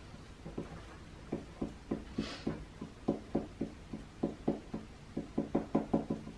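Felt-tip marker tapping dots onto paper on a wooden table: a run of small taps, sparse at first and getting quicker, to about six a second near the end. A brief soft hiss comes about two seconds in.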